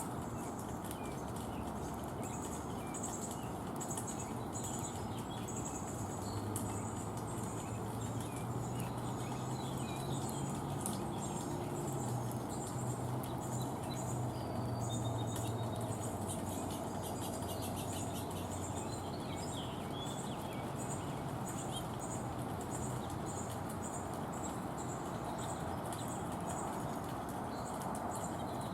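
Small birds calling at a feeder: a high short note repeated evenly, with scattered short chirps, over a steady background hiss. A low hum comes in about six seconds in and fades away around the middle.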